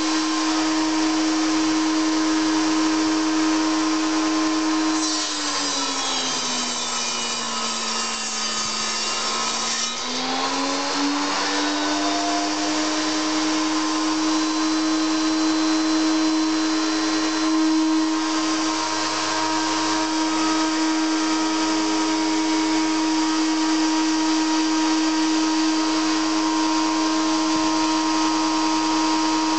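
Schwarzbau TS250A table saw running with a steady whine. About five seconds in, its pitch sags and a rasping noise joins as the blade cuts wood under load. The motor comes back up to speed a little after ten seconds in.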